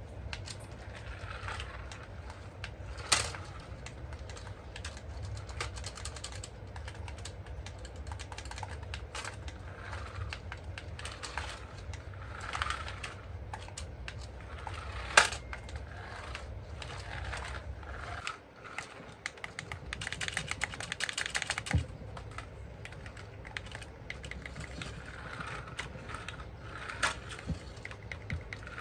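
Light clicking and tapping, with a few sharper knocks and a dense run of rapid clicks past the middle, over a steady low hum that drops out briefly.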